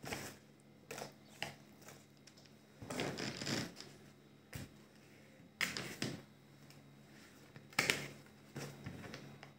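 Grape vine leaves being handled on a wooden cutting board: scattered soft rustles and light taps, with a few sharper knocks as a kitchen knife trims a leaf stem against the board.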